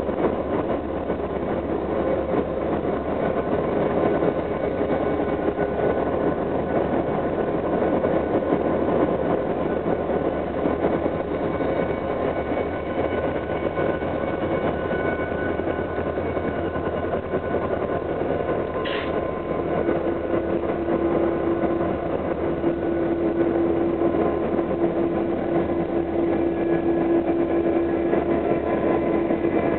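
Parked diesel-electric locomotives idling: a steady engine drone with several steady whining tones. A brief high chirp sounds about two-thirds of the way through, and a steady hum joins just after.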